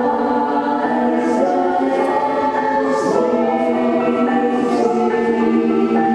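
Women's choir singing held chords in several voice parts, with the sung words' 's' sounds hissing out now and then.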